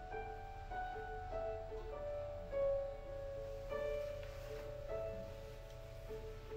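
Piano playing a slow, gentle introduction: single melody notes struck about once a second and left ringing over a repeated lower note.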